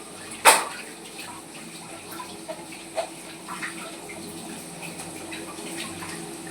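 Cooking at a pan: one sharp metal clank about half a second in, then a steady watery hiss with a few light clinks of a utensil.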